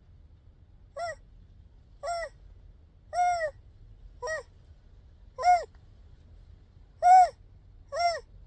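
A baby making short, high-pitched squealing coos, seven in a row about a second apart, each rising and then falling in pitch.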